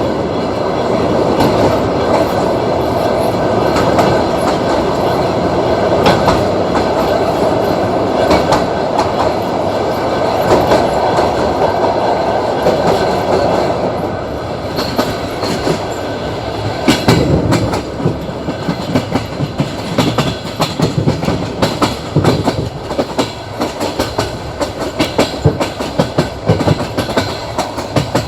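Passenger train running over jointed track: a steady rumble of wheels on rail, with the clickety-clack of wheels striking the rail joints. Over the last third of the sound the knocks get sharper and more frequent.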